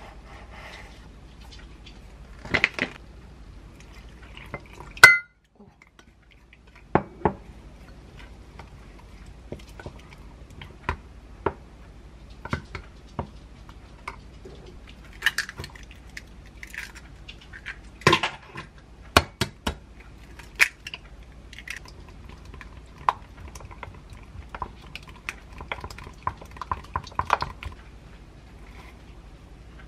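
Spoon and spatula knocking and scraping against a glass measuring cup while flour and water are mixed into a batter, in scattered sharp clinks; the loudest knock comes about five seconds in.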